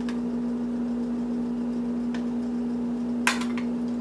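A metal spoon clinks and scrapes against a small plastic tub and a ceramic bowl as ingredients are spooned out: a few light clinks, then a quick cluster of sharper clinks about three seconds in. A steady low hum runs underneath.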